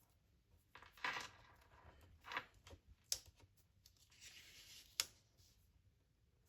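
Faint rustling and sliding of scrapbook paper handled on a paper trimmer, with a few sharp clicks and a longer sliding hiss about four seconds in.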